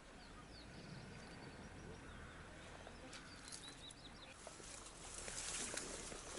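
Faint, short bird chirps in open country. In the last couple of seconds a louder rustling noise with small clicks builds up.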